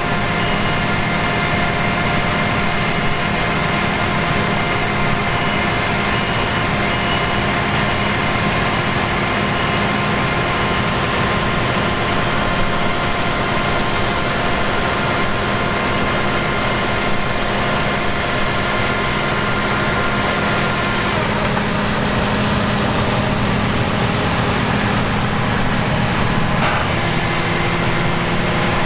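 Large diesel farm machinery running steadily, a constant rumble with a steady whine on top; the whine shifts slightly about two-thirds of the way through.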